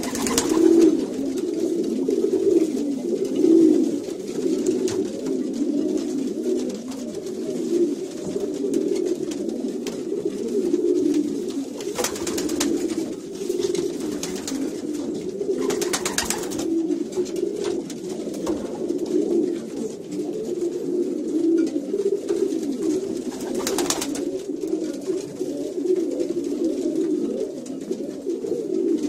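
Many domestic pigeons cooing continuously in overlapping low calls in a loft where they are being paired in nest boxes. A few brief rustling noises stand out above the cooing, four times.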